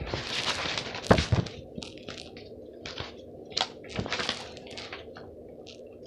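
Paper crinkling and rustling in irregular bursts as sheets are handled. The crinkling is densest in the first second and a half, with a few sharper crackles about four seconds in.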